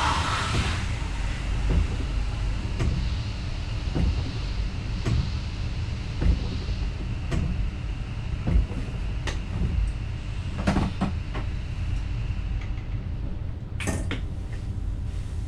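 Steady low rumble of a VIRM double-deck electric trainset heard from the driver's cab while it moves slowly, with irregular sharp clacks every second or so, the wheels going over rail joints and points.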